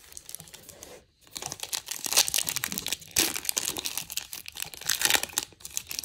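Foil wrapper of a baseball card pack crinkling and tearing as it is ripped open and pulled away from the cards. A brief hush about a second in, then a busy crackle of many small sharp rustles.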